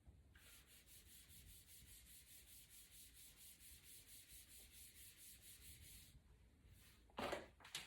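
Faint rapid rubbing, about six strokes a second, with fingers working over the freshly glued iPad digitizer glass; a short louder rustle near the end.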